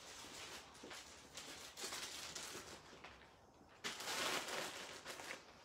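Hands rummaging through craft supplies on a table, rustling paper and plastic in short patches, with a louder rustle about four seconds in.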